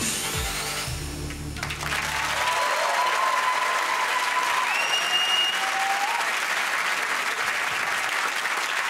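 Music with a heavy bass line cuts off about two seconds in, and a studio audience applauds and cheers, with a few short whistles rising above the clapping.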